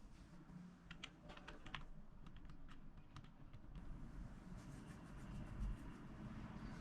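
Faint tapping of computer keyboard keys in short irregular runs.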